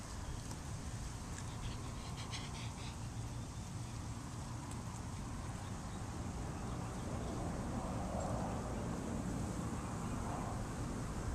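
Outdoor ambience dominated by a steady low rumble of wind on the microphone, with a brief run of high chirps about two seconds in.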